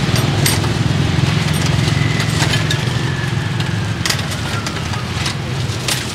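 A small engine running steadily with a low, rapid pulsing rumble that eases off after about three seconds, with a few sharp clicks over it.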